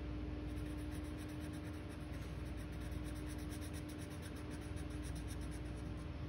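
Felt-tip marker scribbling rapidly back and forth on paper to color in a small area, many short scratchy strokes a second, with a steady low hum behind.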